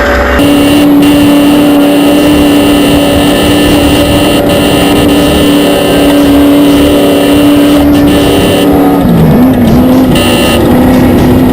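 Race vehicle engine running loud at high, steady revs; near the end the pitch dips briefly and climbs back.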